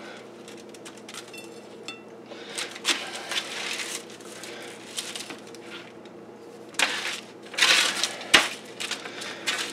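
A plastic spatula scrapes and scoops roasted Brussels sprouts off a foil-lined baking sheet, with irregular scraping and foil crinkling. There is one sharper knock near the end, over a faint steady hum.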